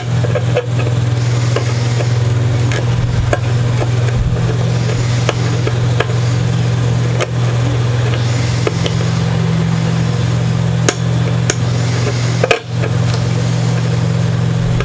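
A steady low hum, like a small motor running, with scattered light clicks and taps over it.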